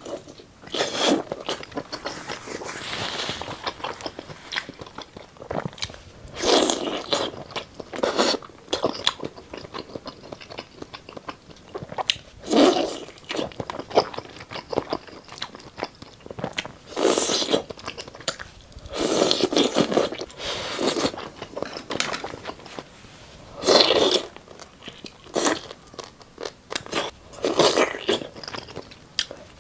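Close-up eating of bobo chicken skewers in red chili oil: loud crunchy bites every few seconds, with chewing and small mouth clicks between them.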